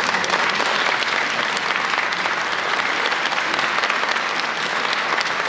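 Audience applauding steadily: a dense, even clatter of many hands clapping, greeting the conductor's entrance onto the stage.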